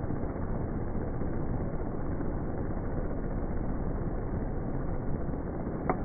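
Palm Leaf portable fan running, its sound slowed down with the slow-motion footage into a low, steady whir that almost sounds like a ceiling fan. A brief click comes near the end.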